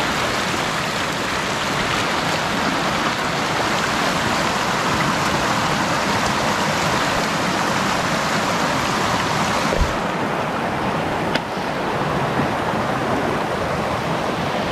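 Shallow mountain creek rippling and rushing over rocks, a steady wash of water. About ten seconds in the sound turns a little duller, and there is one faint click a second later.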